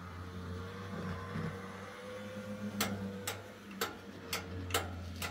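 HO scale model locomotive running on the layout: its small electric motor hums steadily, and from about halfway through its wheels click over the rail joints about twice a second.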